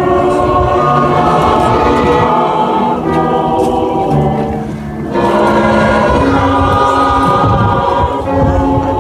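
Mixed choir of men and women singing together in long, held chords, with a short break between phrases about halfway through.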